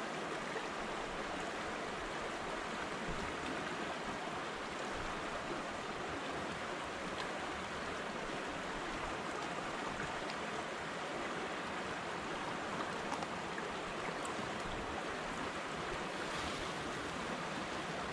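Steady rush of the Similkameen River's current flowing past the shore.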